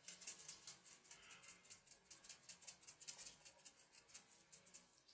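Faint, rapid light tapping and pattering: fingers tapping a plastic measuring spoon to sift a dusting of white powder over baked poppy seed rolls.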